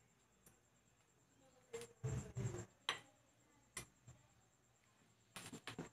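Mostly quiet, broken by a few short faint clicks and light knocks: one about two seconds in with a brief low rumble, single clicks about three and four seconds in, and a quick cluster of clicks near the end.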